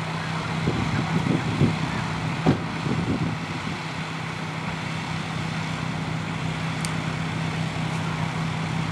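Brush fire truck's engine running steadily with a low, even hum. In the first few seconds a flurry of crackles and snaps rides over it, the sharpest about two and a half seconds in.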